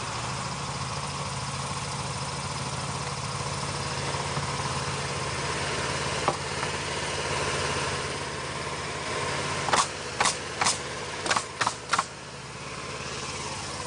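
Tractor engine idling steadily. Near the end, six sharp bangs in quick succession from the fence work.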